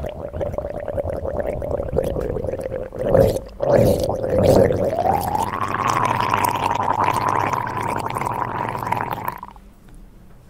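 A person's voice making a long buzzing, gargling noise. It holds one pitch, rises about halfway through, holds the higher pitch, and stops near the end.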